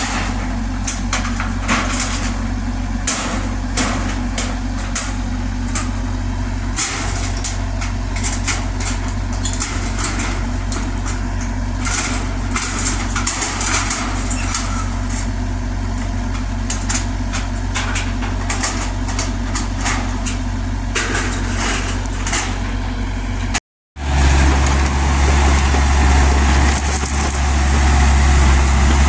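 Kubota U50 mini excavator's diesel engine running steadily, with many sharp clicks over it. After a brief break about three-quarters of the way through, the engine comes back louder and deeper.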